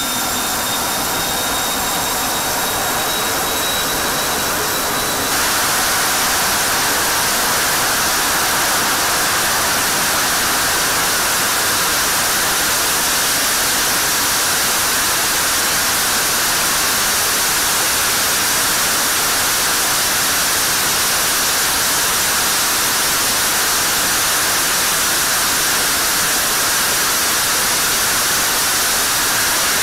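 General Electric F110-GE-100 turbofan running on a test stand, a slightly rising turbine whine over the jet noise. About five seconds in, the sound jumps louder and the whine disappears into a steady rushing noise as the engine runs in afterburner.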